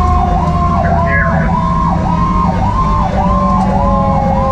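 Fire engine sirens on an emergency run: an electronic siren in a fast yelp, about three rises and falls a second, over a Federal Q mechanical siren whose steady wail slowly sinks in pitch as it winds down. The truck's engine and road rumble sit underneath.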